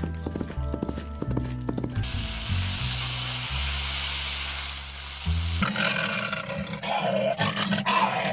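Imitated sound effects over background music: clip-clop hoofbeats of a horse for about the first two seconds, then a hiss, then a lion's roar made with the voice starting a little past halfway.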